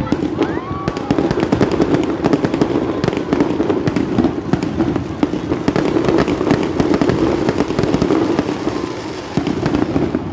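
Fireworks display: a dense, rapid run of crackling bangs, many a second, over a continuous rumble, thickest in the middle and easing near the end. A short rising whistle sounds near the start.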